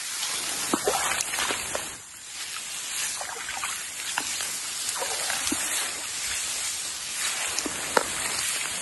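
Tall grass and reed stems swishing and rustling against bodies and legs as people push through on foot, with scattered sharp stem snaps and footfalls.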